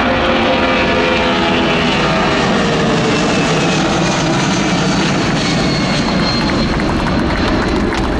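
Boeing C-17A Globemaster III's four Pratt & Whitney F117 turbofan engines running loud in a low flypast. Engine tones slide slowly down in pitch over the first few seconds as the aircraft passes and heads away.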